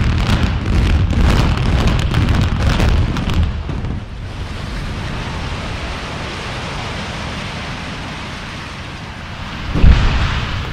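Explosive demolition charges firing in a rapid string of cracks and booms for about three and a half seconds as a highrise is imploded. A steady rumble follows as the structure comes down. Another sharp boom comes near the end.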